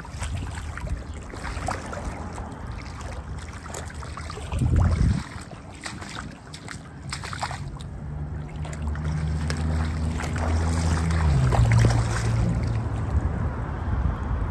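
Shallow water trickling and splashing over a concrete channel bed, with wind buffeting the microphone. A brief low rumble sounds about five seconds in, and a low steady hum comes in about halfway through and grows louder.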